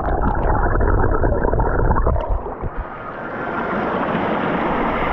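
Underwater sound from a camera held beneath the surface of a waterfall pool: a muffled rush and gurgle of churning water, with the higher sounds cut off. About two seconds in, the deep rumble drops away and a steadier hiss takes over.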